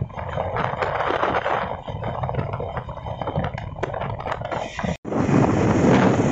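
Wind rushing over the microphone with the road and engine noise of a motorcycle riding at speed, full of small crackles. It cuts out abruptly about five seconds in and comes back louder and deeper.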